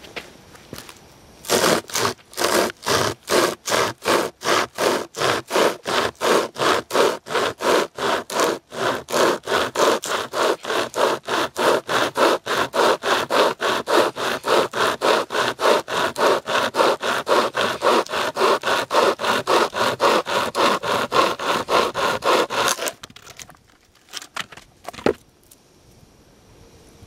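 A hand-pulled pocket chainsaw (a chain with a handle at each end) sawing through a log in quick, even back-and-forth strokes, about three a second. The sawing stops near the end, and a few knocks and a crack follow as the log comes apart.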